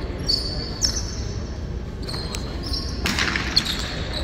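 A jai alai pelota striking the court walls and floor: several sharp knocks, each with a short echo in the big hall. High squeaks run between the knocks.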